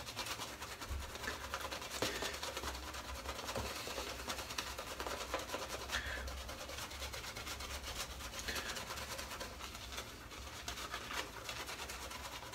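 Wolf Whiskers shaving brush scrubbing rapidly over a bare scalp, building a shaving-soap lather: a continuous bristly rubbing made of many quick strokes.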